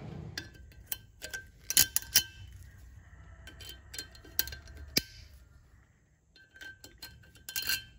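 Needle-nose pliers working thin sheet-metal factory retaining clips off a truck's wheel studs: a run of sharp metallic clicks and clinks with short ringing. The loudest come about two seconds in, at five seconds and near the end.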